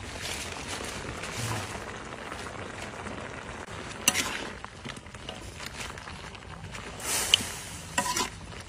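A steel wok of broth simmering with a steady hiss as handfuls of leafy greens are dropped in. A few sharp clicks come about four seconds in and again near the end.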